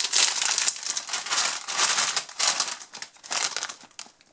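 Metallised plastic snack bag crinkling and crackling as it is pulled open by hand, in quick irregular bursts that thin out near the end.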